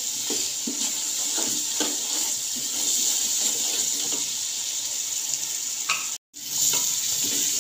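Onion-and-spice masala sizzling in hot oil in a metal pot as it is fried down, with a spatula stirring and scraping through it. The sound cuts out completely for a moment about six seconds in.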